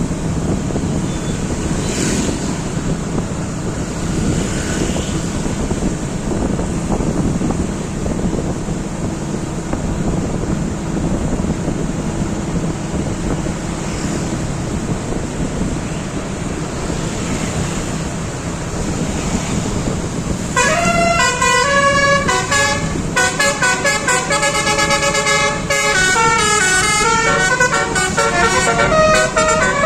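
Steady bus engine and road noise, then about two-thirds of the way in a Basuri multi-tone 'telolet' bus horn starts up, playing a long stepping melody of notes that runs on without a break.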